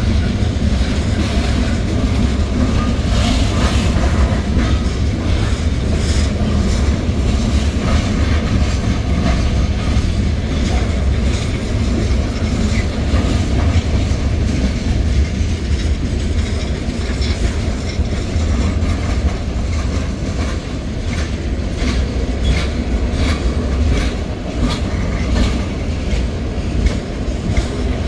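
Freight train's covered hopper cars rolling steadily past, a continuous heavy rumble with the steel wheels clicking and clacking over the rail joints.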